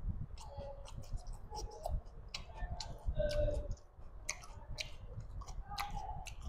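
Close-miked eating sounds: many irregular wet clicks and smacks from chewing and from fingers squeezing and mixing rice with curry on a plate.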